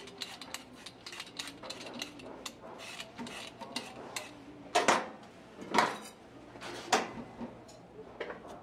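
A handheld vegetable peeler scraping a raw potato in quick, repeated short strokes. Partway through there are three louder metallic clanks.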